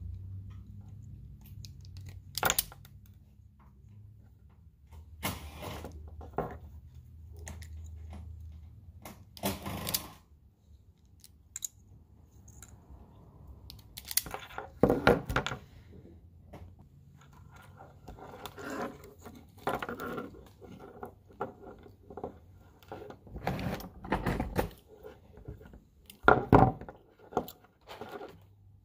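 Car-stereo wiring harness and plastic crimp connectors being handled: scattered clicks, taps and rustles, with a few sharper knocks, the loudest near the end. A low hum sits underneath for about the first ten seconds.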